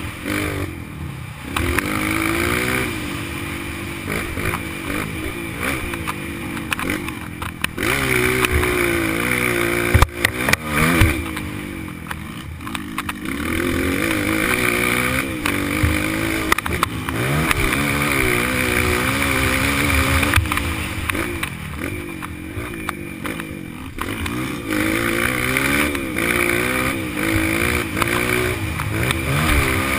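Honda CRF230 dirt bike's single-cylinder four-stroke engine being ridden, revving up and dropping back over and over as the throttle opens and closes. There are a couple of sharp knocks about ten seconds in.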